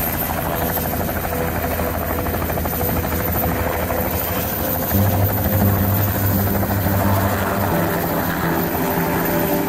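Helicopter running at close range as it lifts off its skids into a low hover, the main rotor's fast chop over the engine noise.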